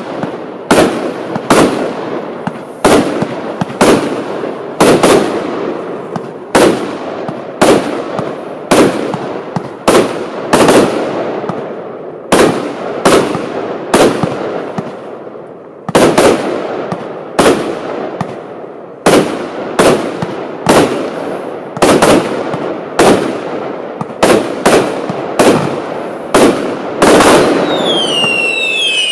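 Lesli "The Undertaker" compound firework battery firing: a steady run of sharp bangs, a little over one a second, each trailing off into crackle. Near the end, several whistles falling in pitch join in.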